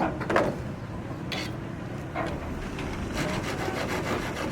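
Irregular rasping, scraping strokes, about five of them, each a short noisy rub.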